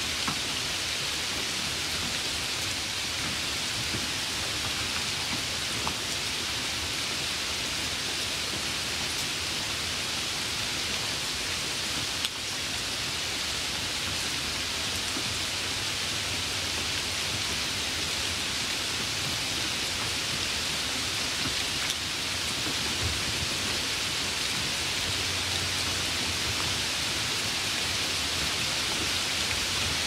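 Light rain falling steadily on a wet surface: an even hiss with the small taps of single drops scattered through it.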